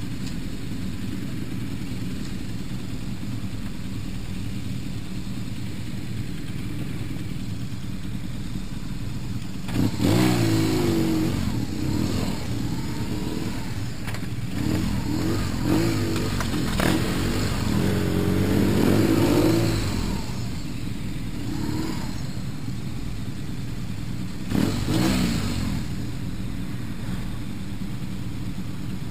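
Racing motorcycle engines idling on the starting grid. About ten seconds in they are revved again and again for some ten seconds, with the pitch rising and falling, and there is one more short rev a few seconds before the end.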